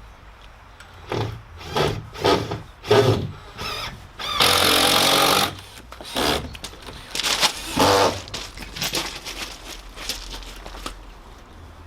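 Knocks of fixing a timber board in place, with a power tool running for about a second near the middle of the sequence, then more irregular knocking.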